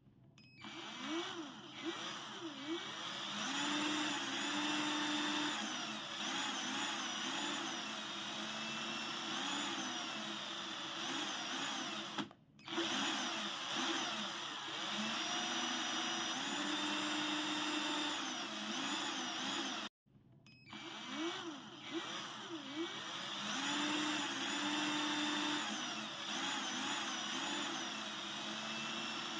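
Power drill running, its motor whine rising and falling in pitch as the speed changes. It stops briefly about twelve seconds in and again about twenty seconds in, spinning back up each time.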